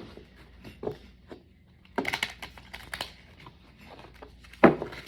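Tarot cards being handled: soft rustling and a few clicks, with a sharp knock a little before the end.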